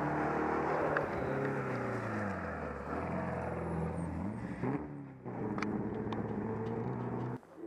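Saab 96 rally car driving flat out past on a gravel stage. The engine note falls in pitch as it goes by, then revs up sharply and cuts out briefly around five seconds in before pulling away.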